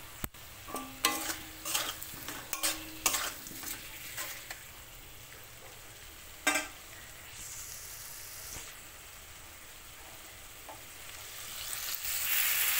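Spatula scraping and knocking against a metal karai as fried potato chunks are stirred through the masala, a quick run of strokes followed by a single knock, with a faint frying sizzle underneath. Near the end a louder rushing hiss starts as water is poured into the hot pan.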